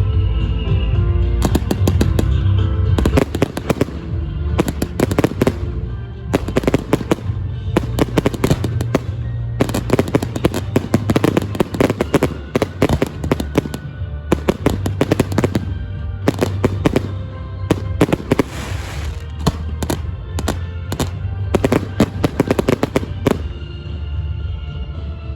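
Fireworks display: rapid clusters of sharp bangs and crackles, ending about a second before the end, over steady music.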